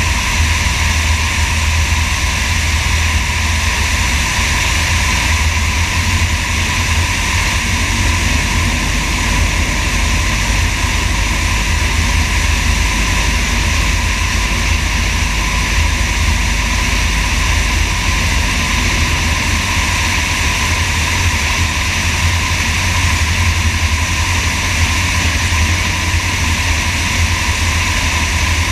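Sonex light aircraft in flight: the engine and propeller drone steadily under a heavy rush of wind and low rumbling buffeting on a microphone mounted under the wing.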